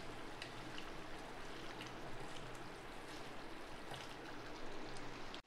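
Thick garlic and tamarind-water mixture simmering in a steel pan, bubbling with faint scattered pops as it is stirred with a silicone spatula. The tamarind water is being boiled down.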